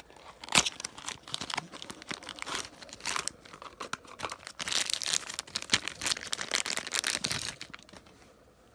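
Small cardboard toy-car box and its clear plastic wrapper being handled and opened: irregular crinkling, rustling and tearing, busiest in the second half and dying down near the end.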